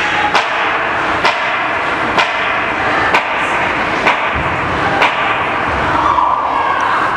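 Ice-arena crowd noise during a ringette game, with six sharp knocks at an even beat of about one a second that stop about five seconds in.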